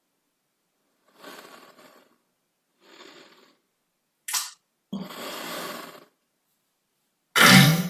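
A string of five short farts with silent gaps between them: two faint airy puffs, a brief sharp one, a longer hissing one, then a loud pitched fart near the end.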